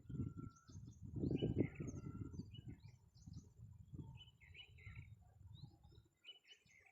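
Small birds chirping, with many short, high calls, over a low rumbling noise that is loudest for the first two seconds or so.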